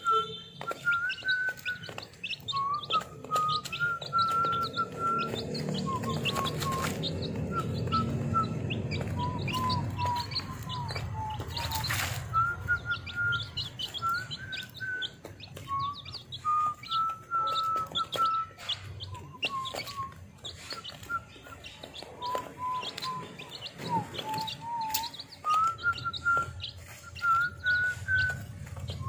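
One-week-old chicken chicks peeping: a continual stream of short, high cheeps, with a lower, longer whistle-like tone coming and going throughout.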